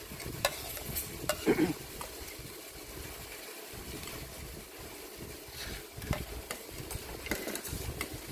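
A metal spoon stirring and scraping through noodles on a ceramic plate, with irregular light clicks of the spoon against the plate over a steady background hiss.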